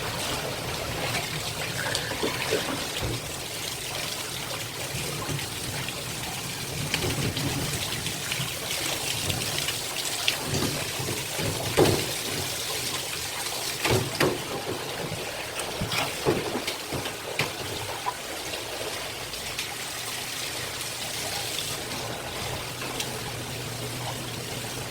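Water running or pouring steadily, with a few sharp knocks around the middle.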